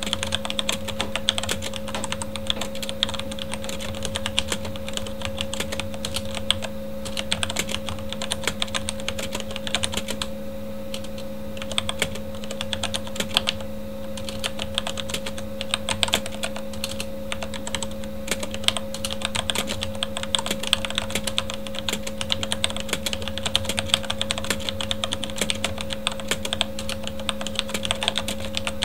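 Continuous fast typing on a Corsair K70 mechanical keyboard with Cherry MX Red linear switches: a dense stream of key clicks and clacks, thinning briefly about ten seconds in. A steady computer-fan hum runs underneath.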